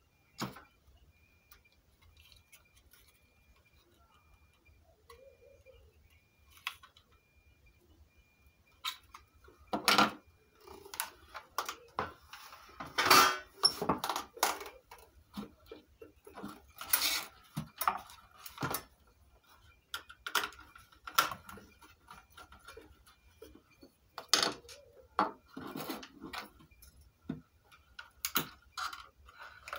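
Plastic casing and small electronic parts being handled on a wooden table: scattered clicks, knocks and clatter, sparse at first and much busier from about a third of the way in.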